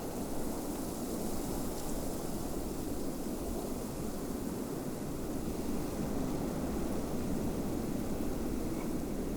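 Snowstorm wind blowing steadily, a constant rushing noise without distinct events.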